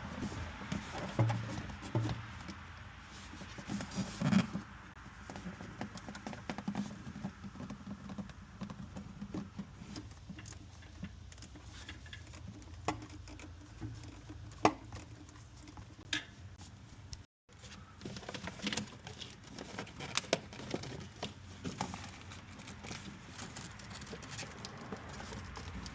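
Scattered light clicks and knocks of hand tools and metal parts being handled during reassembly under the hood, over a faint low hum.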